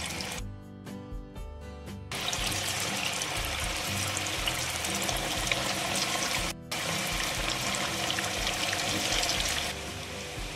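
Potatoes deep-frying in hot oil: a dense, crackling sizzle that swells up about two seconds in, drops out for an instant a little past the middle and eases near the end. Background music with a steady beat plays underneath.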